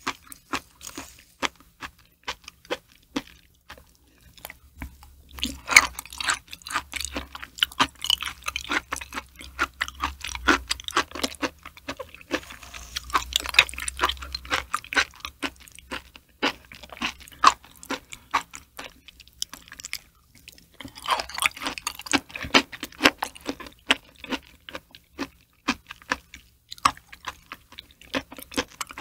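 Close-miked wet chewing and lip-smacking of soft raw liver, many quick sticky clicks and squelches in irregular flurries.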